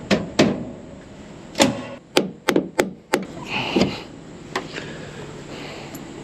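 Hand tools knocking against combine metal while a pulley bolt is being loosened for a belt change: a string of sharp, irregular knocks, about eight in all.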